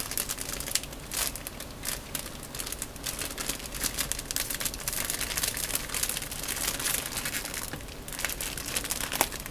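Clear plastic bag around a plastic model-kit parts runner, crinkling and crackling continuously as hands twist and pull at it to open it, with a brief lull near the end.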